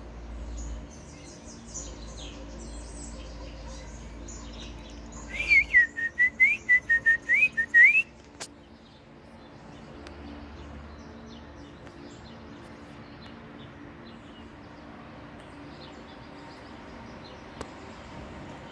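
Gray catbird singing a jumbled song of squeaky high notes, the mimicry that makes it sound like a mockingbird. A loud run of about ten quick whistled notes comes about five seconds in and lasts a little under three seconds.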